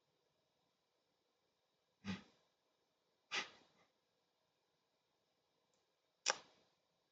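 A person's short breaths through the nose, three times, each sharp at the start and fading quickly, with near silence between them.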